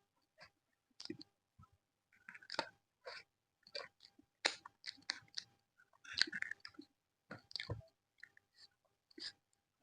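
A person chewing aloo methi paratha with curd, with irregular wet smacks and clicks of the mouth every half second or so.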